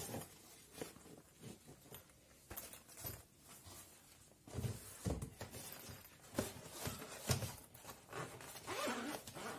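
Rustling and scattered soft knocks from a black fabric carry bag being handled. It is lifted out of a cardboard box, set down on a table and opened, with the busiest handling in the second half.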